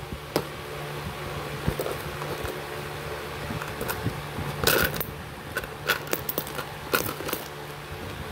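A homemade cardboard-box ballpen dispenser being pulled and pushed by hand, with scraping, a few sharp clicks and knocks, and one louder scrape about halfway through, as a peso bill and plastic ballpens slide out. A steady low hum runs underneath.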